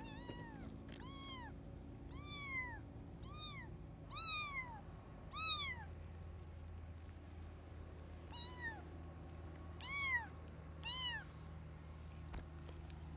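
Kitten meowing repeatedly, about nine short meows that each rise and fall in pitch, with a pause of a couple of seconds in the middle.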